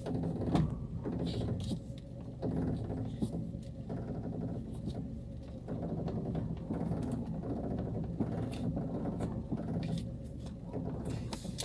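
2010 Honda Civic's front strut coil spring juddering as the steering wheel is turned, a run of irregular knocking and creaking ('tuc, tuc, tuc') heard from inside the cabin over the idling engine. The spring vibrates in its strut mount, a fault the mechanic blames on a poor-quality strut kit.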